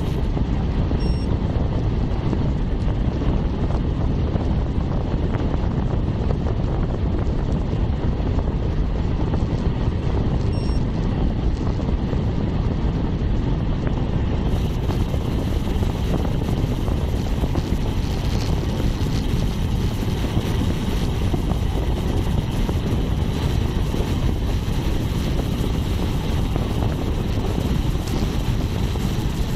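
Steady wind rush buffeting the microphone of a bike-mounted camera on a bicycle riding at about 38 km/h, with no break or change in loudness.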